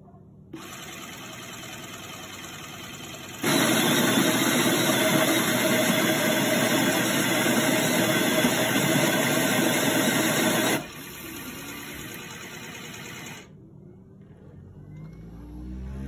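Spinn Pro coffee maker running through its brew cycle. A motor noise starts about half a second in, turns much louder for about seven seconds, drops back to the lower level, then fades. Near the end a rising whine begins.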